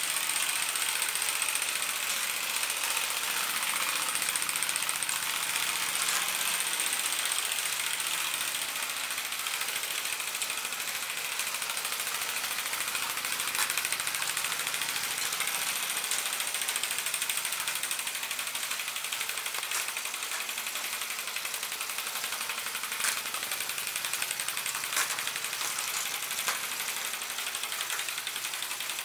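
Mamod Brunel gas-fired vertical-boiler live-steam locomotive running on its track: a steady hiss of working steam with a few sharp clicks in the second half.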